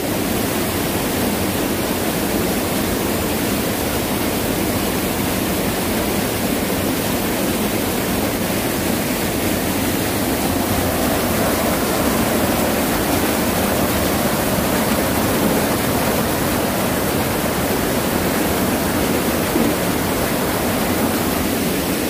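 Mountain stream swollen by heavy rain, pouring over rocks in a small waterfall: a loud, steady rush of water.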